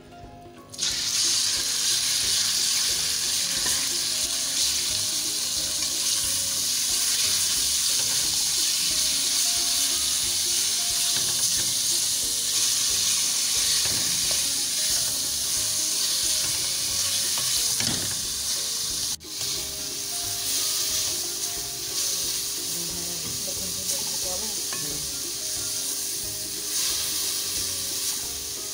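Marinated raw chicken pieces dropping into hot oil in a metal pan and sizzling loudly from about a second in, stirred and turned with a plastic slotted spatula. The sizzle breaks off for an instant about two-thirds of the way through, then goes on a little quieter.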